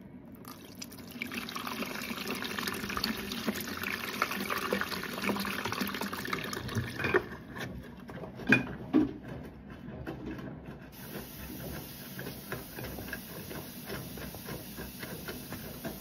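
Water poured into the open detergent drawer of a running Siemens front-loading washing machine, a steady splashing flow lasting about six seconds. Two loud knocks follow about halfway through, then a fainter steady wash noise.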